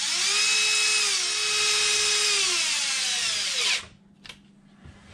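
Cordless drill/driver running in one continuous spell of about four seconds, driving in a bolt that holds the steering servo mount. Its motor whine dips in pitch about a second in, then drops and stops.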